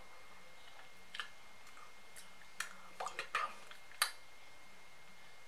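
Quiet room with about seven soft, scattered clicks, spread from about a second in to about four seconds in, the last one the sharpest.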